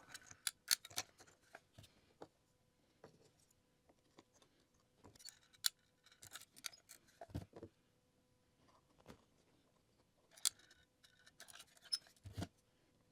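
Pieces of ledge rock clicking and knocking lightly as they are handled and set in place: a dozen or so faint, separate clicks scattered irregularly, several in a quick cluster about a second in and a pair near the end.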